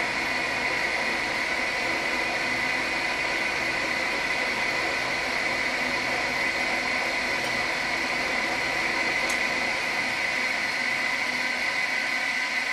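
Schaublin SV-51 milling machine running steadily at 180 rpm with a Wohlhaupter boring head turning and taking a light 0.25 mm boring cut in steel. It makes an even mechanical hum with a high whine.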